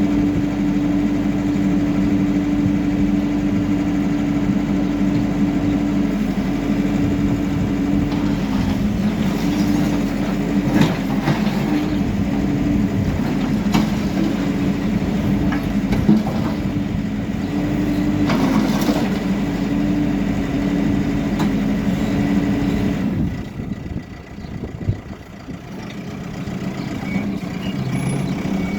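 HIDROMEK K4 Alpha backhoe loader's diesel engine running steadily under load, with scattered knocks and clatter from the work. About two-thirds of the way through the engine note drops away for a few seconds, then builds back up.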